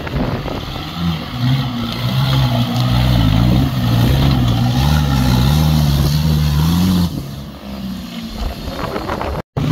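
Engine of a lifted 4x4 SUV working hard under load as it climbs a steep rocky slope, the revs rising and falling unevenly, then easing off about seven seconds in.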